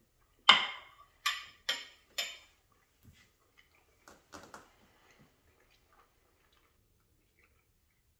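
A fork and plate clinking: four sharp, ringing clinks in the first couple of seconds, the first the loudest, then a few softer knocks as the plate goes down on the countertop.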